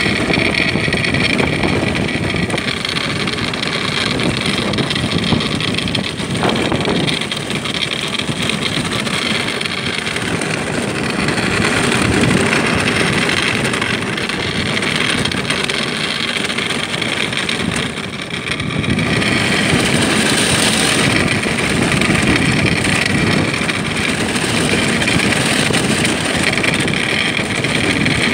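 Ice yacht running fast over lake ice: a steady rumbling hiss of its runners on the ice mixed with wind buffeting the microphone, easing briefly about eighteen seconds in.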